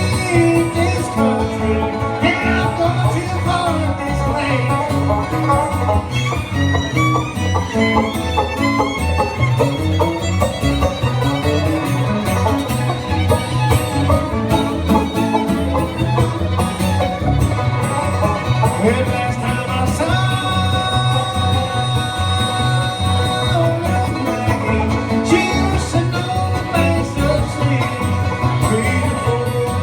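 Bluegrass band playing an instrumental break, with fiddle, banjo and guitar over a steady bass beat.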